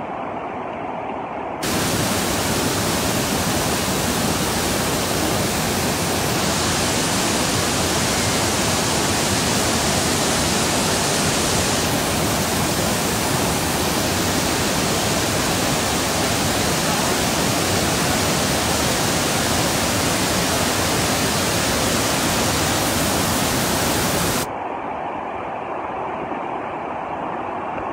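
Loud, steady roar of flood-swollen river water crashing over rocky falls and rapids. It starts abruptly a couple of seconds in and cuts off abruptly near the end, giving way to a quieter, duller rush of fast floodwater.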